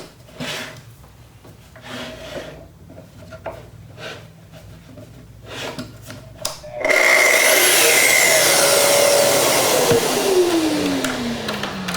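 Small clicks and rubbing from handling the saw, then about seven seconds in a Festool track saw is switched on and spins freely with a loud whine, without cutting. After a couple of seconds it is released and winds down, its pitch falling steadily. This is a test run of the freshly repaired motor, which sounds like it works.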